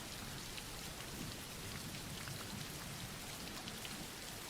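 Steady, soft rain falling, with the patter of individual drops.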